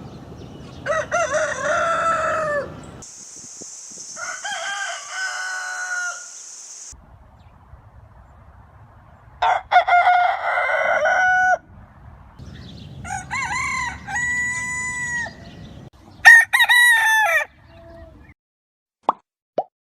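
Rooster crowing, about five separate crows one after another, each a drawn-out cock-a-doodle-doo of one to two seconds, differing in pitch from crow to crow. A couple of short pops near the end.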